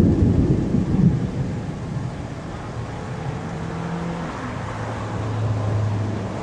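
Wind gusting on the microphone for about the first second, then a steady low rumble with a faint low hum: the distant roar of a violent wedge tornado.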